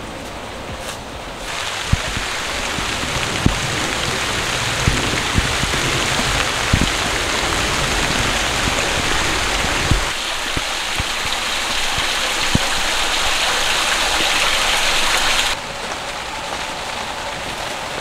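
Heavy rain falling, a dense steady hiss with scattered louder drops striking close by. It grows louder about a second and a half in and drops to a quieter hiss near the end: a sudden heavier downpour.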